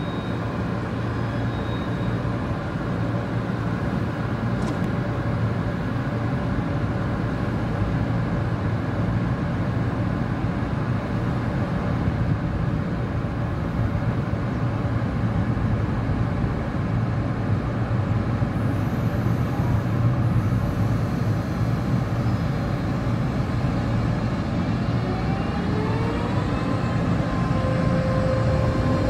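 TRA EMU500 electric multiple unit standing at the platform with a steady low hum. About 25 seconds in it starts to pull away, and its traction equipment gives a rising whine that levels off near the end.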